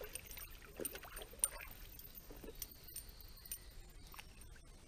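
Faint light splashing and a few scattered small clicks as a hooked fish is reeled in on a spinning rod and thrashes at the water's surface beside the boat.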